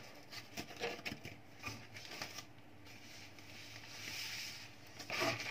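Rustling and crinkling of a laptop's white protective wrapping as it is handled and pulled off, with scattered light taps and clicks. A longer swishing rustle comes about four seconds in.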